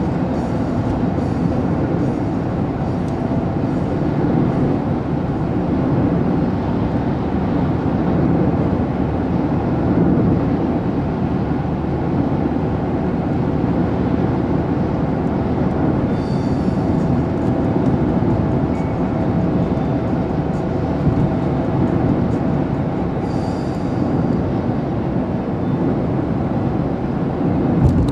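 Steady road and engine noise heard inside the cabin of a moving car, with a single thump near the end.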